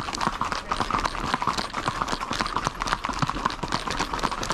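Horses' hooves clip-clopping: many quick, overlapping hoofbeats, as from several horses walking together.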